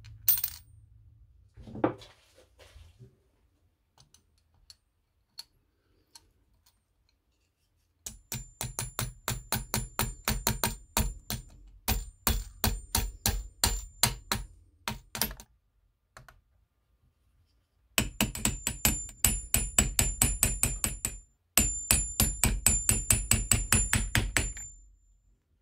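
A metal clink and a thunk in the first two seconds, then runs of rapid metallic clicking, about four a second, from a ratchet wrench with a socket. It is tightening the nut that holds the grinding stone on the sharpener's spindle.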